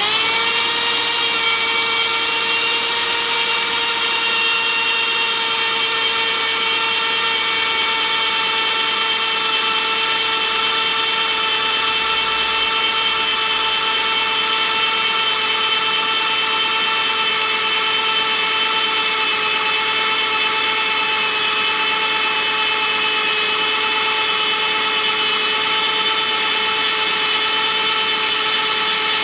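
Handheld plastic extruder running while welding polypropylene, its motor giving a steady high whine after spinning up at the very start.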